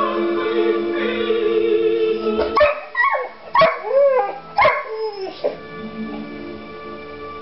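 A 10-month-old bullmastiff puppy howls along to classical music: about four short, wavering cries, each bending up and down in pitch, starting about two and a half seconds in. Under them, music with string tones plays steadily.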